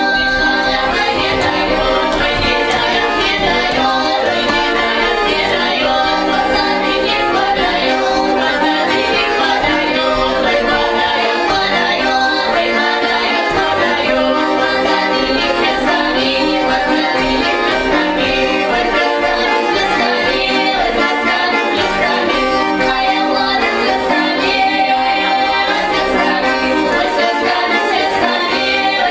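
A trio of women singing a Russian folk song in open-throated folk style, several voices together in close harmony.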